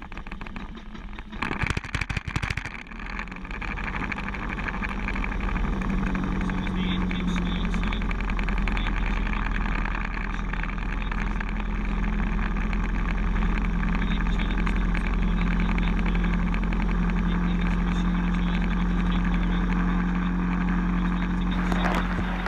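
Piper PA-28 light aircraft's piston engine starting: a rough, uneven spell about one and a half to three seconds in, then it settles into running steadily at idle.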